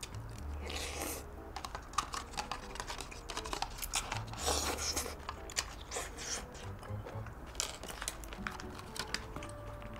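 A person eating spicy cold buckwheat noodles: many small wet chewing clicks throughout, with two longer slurps, about half a second in and about four and a half seconds in.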